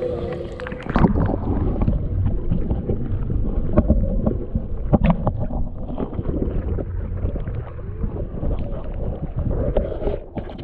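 Handling noise from a small action camera being picked up and moved around: a continuous low rumble with many scattered knocks, bumps and scrapes against the housing.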